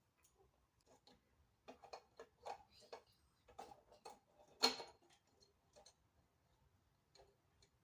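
Small plastic toy doll-locker pieces being handled, giving a scatter of quiet, irregular clicks and taps with one louder knock a little before five seconds in.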